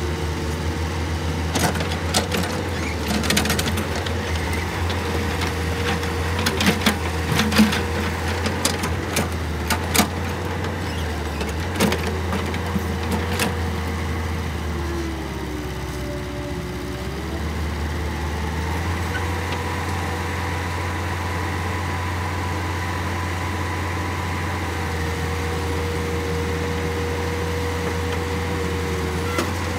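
Hydraulic excavator's diesel engine running steadily with a steady whine while it loads dirt into a dump truck. Sharp clanks and knocks come repeatedly through the first half.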